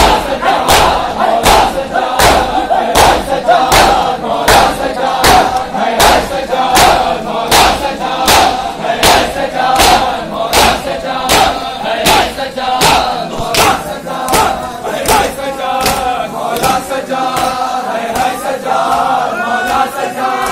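A crowd of men beating their chests in matam: sharp open-hand slaps on bare chests in unison, about two a second, over loud group chanting of mourners. The slaps weaken near the end while the chanting carries on.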